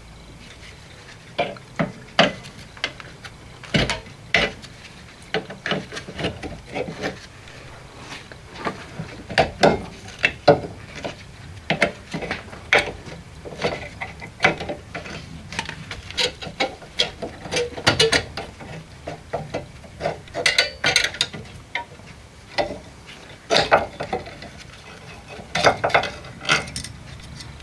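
Irregular metallic clinks, knocks and scrapes of a Classic Mini's rear drum brake being dismantled by hand: the brake shoes and their return springs being worked off the backplate.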